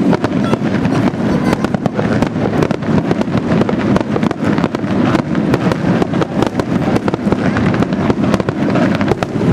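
Display fireworks bursting in a dense, rapid barrage: many sharp bangs and crackles per second, overlapping into a continuous loud rumble.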